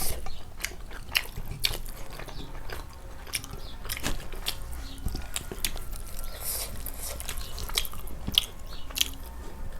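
Close-up eating sounds: chewing and biting with irregular small crunches and smacking clicks, as in a mukbang of rice and fried pork.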